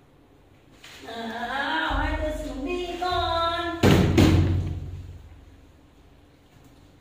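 A drawn-out, wavering pitched voice call with a few short breaks, followed about four seconds in by a loud thump that fades away.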